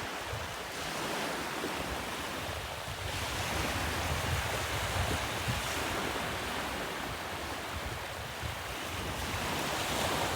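Sea surf washing onto the shore, with wind buffeting the microphone.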